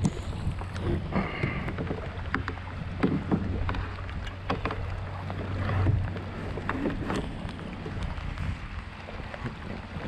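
Water splashing and dripping around a kayak, small irregular splashes throughout, over a steady low rumble of wind on the microphone.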